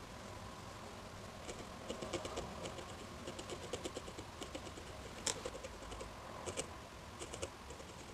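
A felting needle stabbing repeatedly into wool on a needle-felted figure, giving quick soft clicks several times a second with short pauses, starting about a second and a half in.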